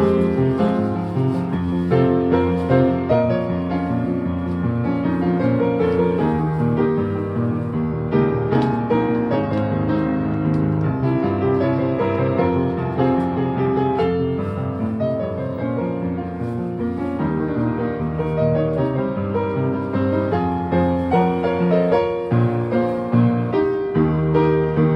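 A piano played without a break: full chords in the low range under a busy melody.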